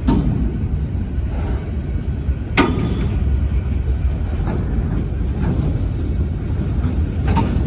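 Freight train of mostly boxcars rolling past with a steady low rumble. Sharp clanks sound about two and a half seconds in and again near the end.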